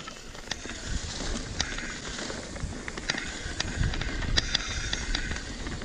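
Full-suspension mountain bike riding fast down a leaf-covered dirt trail: a steady low rumble of tyres over the ground, with scattered sharp clicks and rattles from the bike.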